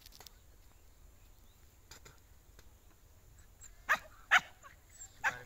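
An animal calling three times in short calls, all near the end, over a quiet rural background.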